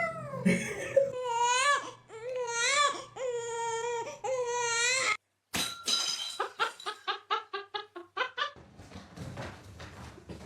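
A cat meowing in a series of long, drawn-out, wavering cries that sound like crying. After a sudden cut about five seconds in, a quick run of short pitched calls follows, about five a second.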